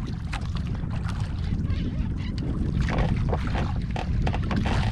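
Wind rumbling on the microphone and sea water moving around a small outrigger boat, with scattered short clicks.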